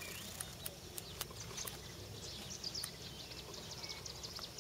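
Many birds chirping in quick, short calls, over a steady low background rumble, with a few sharp clicks in the first three seconds.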